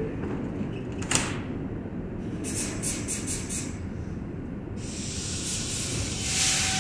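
Standing R142 subway train with its doors closed, readying to depart: a click about a second in, a run of short air hisses around the middle, then a longer hiss and the whine of the traction motors coming in near the end as it starts to pull out, over a steady low rumble.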